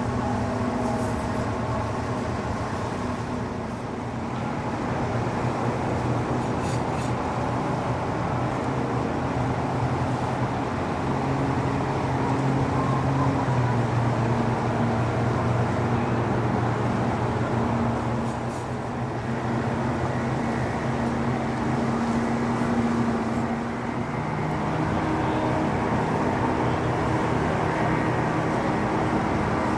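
Motorboat engines running as boats pass in a line, a steady drone whose pitch drifts slowly up and down.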